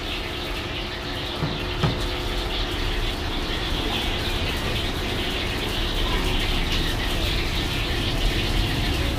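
Steady street ambience: a low traffic rumble with high chirping over it, and a light knock about two seconds in.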